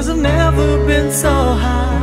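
Background music: a slow melody with sliding, wavering notes over held low bass notes.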